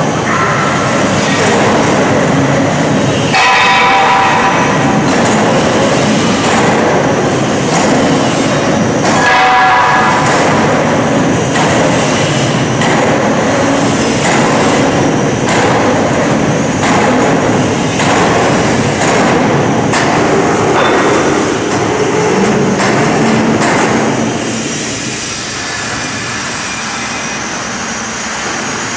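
Overhead travelling crane running while it carries a load: a loud continuous rumble with clanks, and a high steady squealing tone twice, about three and nine seconds in. The rumble drops off somewhat near the end.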